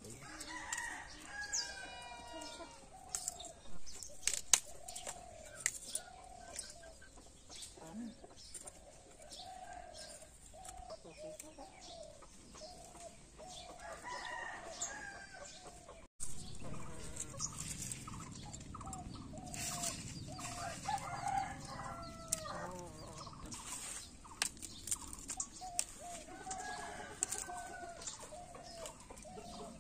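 Domestic chickens clucking over and over in strings of short calls, with a rooster crowing about a second in. Sharp clicks and taps from vegetables being cut and handled come in between.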